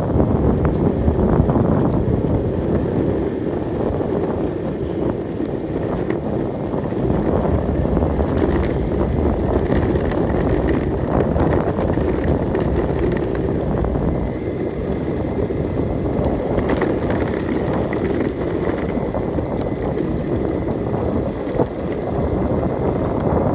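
Skateboard wheels rolling steadily over rough asphalt, a continuous gritty rumble mixed with wind buffeting the microphone. A faint high whine joins about halfway through.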